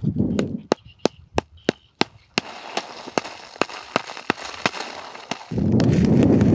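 Wood fire crackling and popping: sharp snaps a few times a second over a soft hiss. About five and a half seconds in, a loud, rough low rumble takes over.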